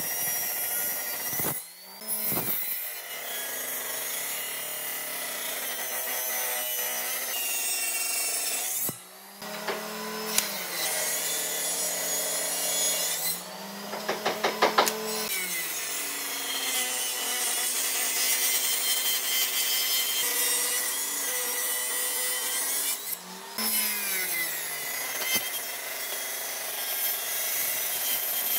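Table saw blade ripping lengths of timber lengthwise, a dense cutting noise that breaks off briefly a few times. About halfway through comes a quick run of sharp knocks.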